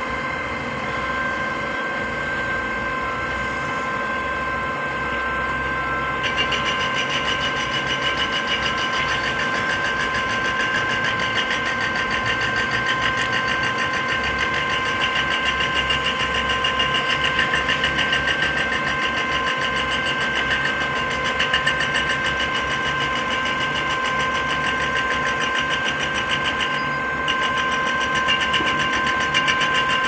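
KCP truck-mounted concrete pump's engine and boom hydraulics running as the boom unfolds: a steady engine rumble with a constant whine on top. About six seconds in it turns louder and rougher, dipping briefly near the end.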